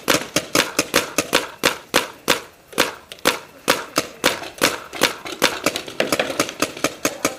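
Paintball markers firing in an irregular stream of sharp pops, several shots a second, some louder and nearer than others.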